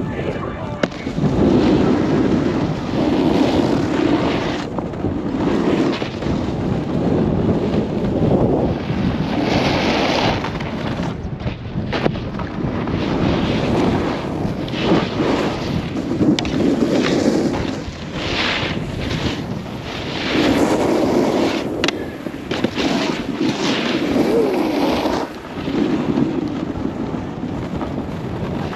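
Wind rushing over the microphone of a camera carried by a following snowboarder, with snowboard edges scraping over packed snow in surges as the riders turn. A few sharp knocks stand out, about a second in and around the middle.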